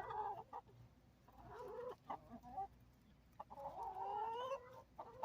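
Laying hens clucking quietly: a few short calls, then one longer drawn-out call about three and a half seconds in.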